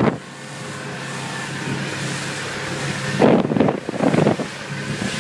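A boat motor running steadily at a low hum, with wind buffeting the microphone. Louder rough gusts of noise come in about three seconds in.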